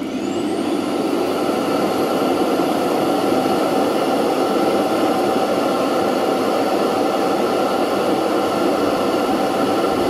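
Roidmi EVE self-emptying dock's suction motor spinning up with a rising whine, then running with a loud, steady whir as it pulls dust from the docked robot vacuum into the dust bag.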